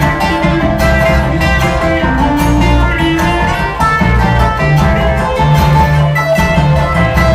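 Live bluegrass string band playing an instrumental passage: acoustic guitar, banjo, mandolin and upright bass, with quick plucked notes over a steady bass line.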